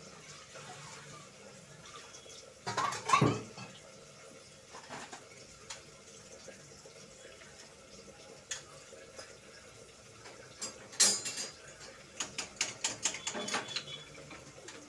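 Metal kitchen utensils clattering and clinking: a louder clatter about three seconds in, a sharp clink about eleven seconds in, then a run of quick light clinks near the end.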